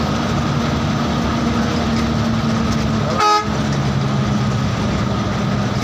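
Bus engine and road noise droning steadily while driving, with one short vehicle horn toot about three seconds in.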